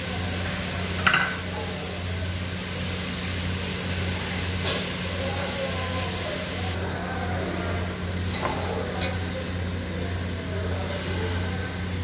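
Steady roar of a gas burner under a pot of chicken and liver boiling in its juices, with a sizzling hiss over it. A sharp clack about a second in and a few lighter clicks later.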